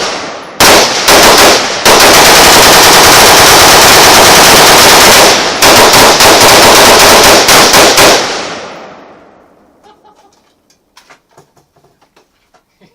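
Several AR-15 rifles firing rapidly at once. The shots merge into one continuous volley for a few seconds, then break back into separate shots that stop about eight seconds in, and the echo dies away. The shots are loud enough that the recording clips.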